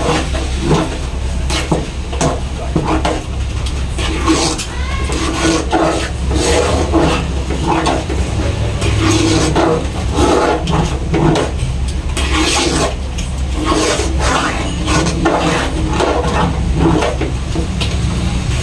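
A ladle scraping and knocking against the sides and bottom of a large metal cooking pot in irregular strokes as sticky-rice porridge is stirred, over a steady low hum.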